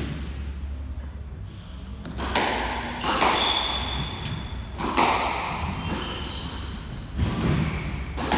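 Squash ball smacking off rackets and the court walls about five times in a rally, each hit echoing around the court, with sneakers squeaking on the wooden floor between shots.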